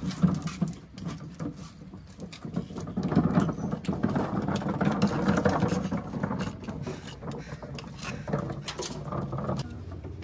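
Oyster knives prying and scraping at raw oyster shells as they are shucked: irregular clicks and scrapes of steel on shell, busier in the middle few seconds.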